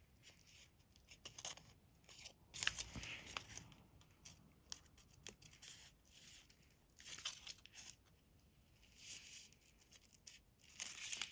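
Small ornate scissors snipping through a clear printed washi sheet: a scattering of short, faint cuts with light rustling of the plastic film.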